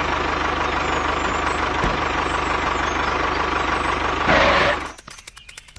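Tractor engine running steadily with an even low beat, swelling louder about four seconds in, then cutting off about a second later.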